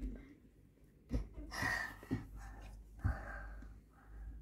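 Soft breathy gasps close to the microphone, with a few low knocks about a second apart.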